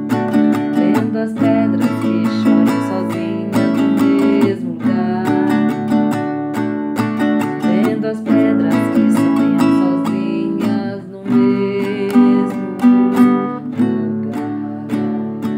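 Acoustic guitar strummed in chords, with quick repeated strokes.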